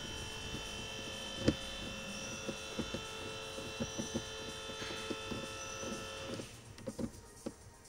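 A steady electrical hum made of several held tones, with scattered light clicks and knocks of plastic dashboard trim and a screwdriver being handled. The hum cuts off suddenly about six and a half seconds in, leaving only a few clicks.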